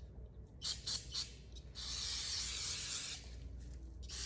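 Aerosol brake cleaner being sprayed onto a camshaft to wash off old grit and oil: three short hissing spurts, then one longer spray lasting over a second, and another spray starting near the end.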